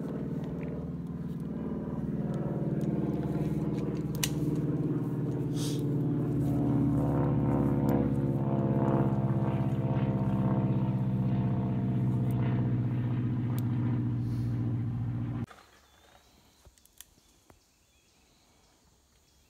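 An engine running steadily at idle, its pitch creeping up a little partway through, then cutting off suddenly about fifteen seconds in.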